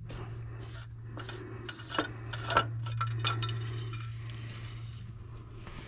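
Light metallic clinks and scrapes from a combine's engine oil dipstick being pulled from its tube and handled, about half a dozen in the first few seconds, over a steady low hum.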